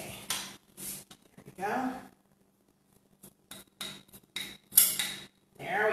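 Pampered Chef metal garlic press clicking and clinking as a garlic clove is pressed through it and scraped out: a string of short, sharp knocks, the loudest near the end.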